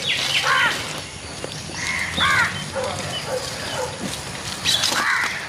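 Crow cawing: three calls about two seconds apart.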